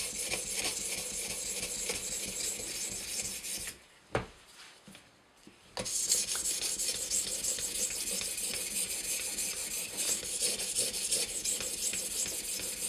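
A 600-grit sharpening stone on an Edge Pro's guided arm stroked back and forth along the CTS-20CP steel edge of a Spyderco Paramilitary 2 knife, a steady gritty scraping. Near the middle it stops for about two seconds, with one light knock, then the scraping starts again.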